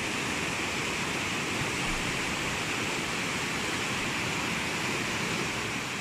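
Steady rush of fast-flowing mountain river water, an even hiss with no breaks.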